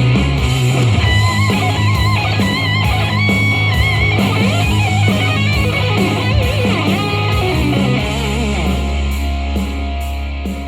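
Rock song with a lead electric guitar playing held, bent notes with vibrato over a steady bass line, played back on a JBL Flip 5 Bluetooth speaker.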